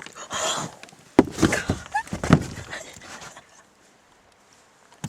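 Young women laughing breathlessly in short excited bursts, with a few high squeals about two seconds in; it dies away over the last second or so.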